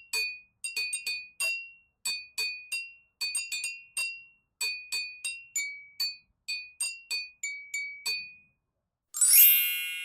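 Small glass-like chime tapped over and over in an uneven rhythm, about three light strikes a second, nearly all on the same high note, each ringing briefly. Near the end a louder shimmer of many high chime tones rings out and fades slowly.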